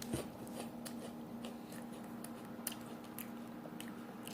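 Faint close-up chewing with the mouth closed: soft wet mouth clicks every half second or so over a low steady hum.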